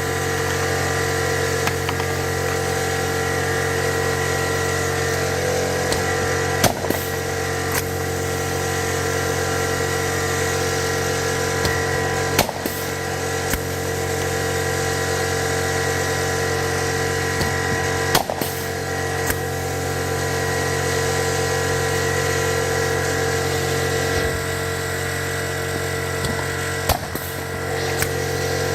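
Steady machine hum with four sharp snaps about six seconds apart, typical of a pneumohydraulic blind-rivet tool pulling rivets and breaking off their mandrels.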